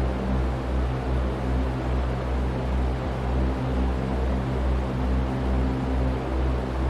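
Electric fan running steadily: an even whooshing over a low hum that pulses about two to three times a second.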